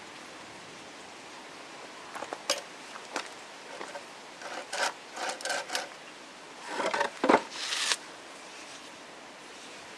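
A wooden bucksaw handled against a log: a few sharp clicks and knocks, then short, irregular scrapes of the toothed blade on the wood. The longest and loudest scrape, with a knock, comes near the end.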